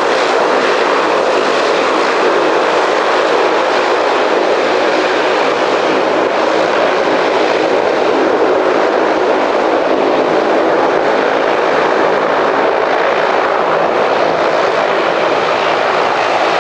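Twin turboprop engines of an ATR-42-300 running at low power while it taxis on the runway after landing: a steady, loud propeller drone with a faint low hum of steady tones underneath.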